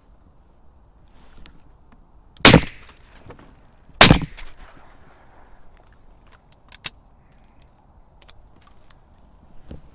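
Two shotgun shots about a second and a half apart, each with a short echo trailing off, followed a few seconds later by a couple of small sharp clicks.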